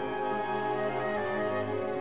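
Orchestral background music with held notes.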